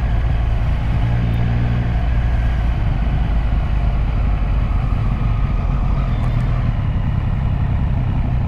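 Triumph Street Triple RS's 765 cc inline-three engine running steadily under way, heard through a microphone inside the rider's helmet, with a constant rush of riding noise.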